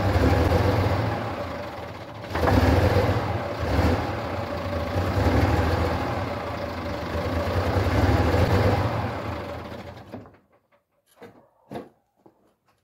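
Star 200 truck's six-cylinder diesel running unevenly after a cold start on a frosty morning, its revs rising and falling, then dying away about ten seconds in. A few short clicks and knocks follow.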